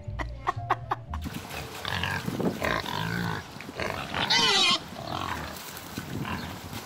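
Domestic pigs grunting in a muddy pen, with a few sharp clicks at first and one loud, wavering squeal about four seconds in.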